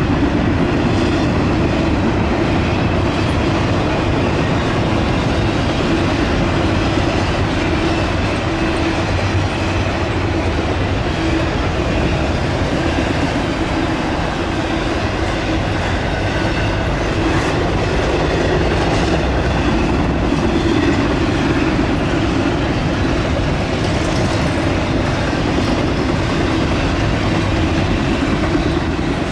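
Freight train of double-stack container well cars rolling past steadily, steel wheels running on the rails.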